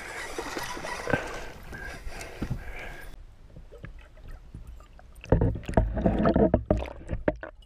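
Water splashing and sloshing around a hooked chain pickerel being played beside a boat. About three seconds in the sound turns dull and muffled as it is heard from under the water, and near the end comes a run of heavy thumps and knocks.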